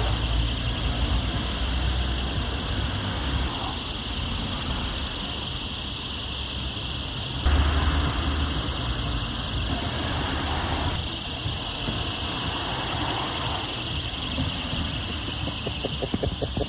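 About a dozen small personal alarms shrieking together in one continuous high-pitched wail, set off when their pull pins were yanked out by the opening car boot. Street traffic rumbles underneath.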